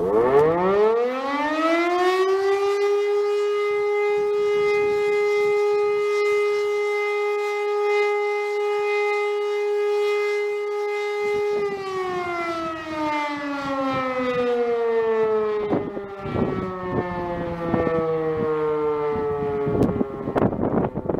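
East German DS 977 electric motor siren sounding its weekly test alarm. It winds up to a steady wail in about two and a half seconds, holds one steady tone for about nine seconds, then slowly winds down with a falling pitch. Scattered knocks and crackles are heard during the wind-down.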